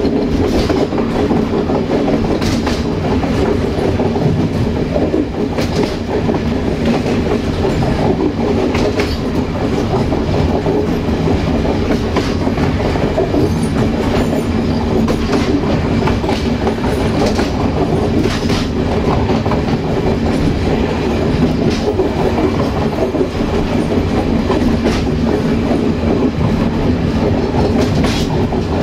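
Railway passenger coach running along the track: steady wheel-and-rail rumble, with a sharp click over the rail joints every few seconds.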